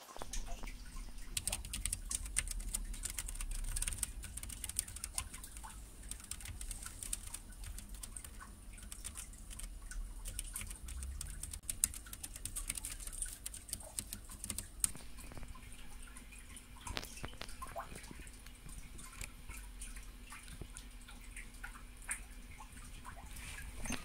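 Typing on a Perixx PeriBoard-328 mechanical keyboard with Kailh Brown tactile switches. A quick, dense run of key clacks fills the first half, then the keystrokes come slower and more scattered.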